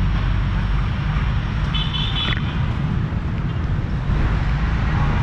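Steady road traffic noise of vehicles running past, with a short high-pitched tone about two seconds in.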